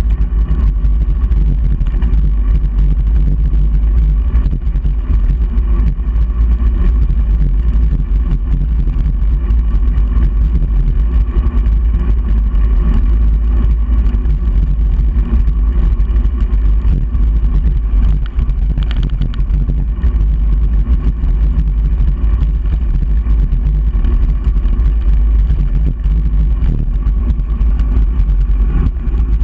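Steady, loud wind buffeting and road rumble on the microphone of a GoPro Hero 3 mounted on the handlebars of a moving bicycle.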